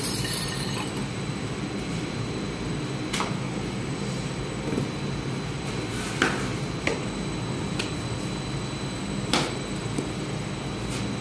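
Steady mechanical running noise of bakery machinery with a thin high whine, broken by about six sharp knocks and clinks from the baker's rolling pin and metal paddle against the table and the oven plate.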